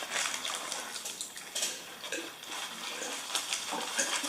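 Close-miked chewing and lip smacking while eating: a dense run of short, irregular wet clicks and crackles.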